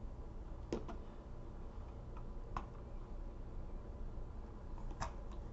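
A few light clicks and taps, spaced out, over a low steady hum; the loudest come about three-quarters of a second in and about five seconds in.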